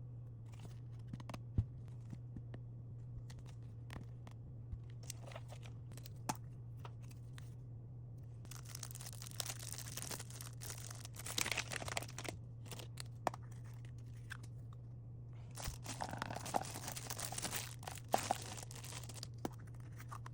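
Packaging crinkling and tearing as items are unwrapped by hand, in two longer stretches, with scattered light clicks and taps of objects being handled. A steady low hum runs underneath.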